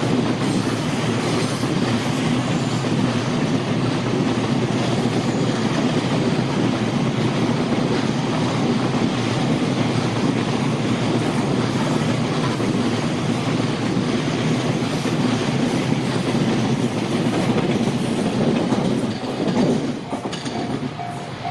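Freight train passing close by on the Tōkaidō Main Line, a steady rumble and clatter of its wagons' wheels on the rails. Near the end the train noise drops away and a level-crossing bell is heard ringing in a repeating pulse.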